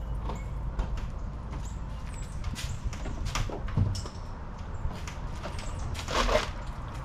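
Light clicking and knocking of plastic organizer cases and loose parts being handled, over a steady low rumble, with a longer rustling scrape about six seconds in.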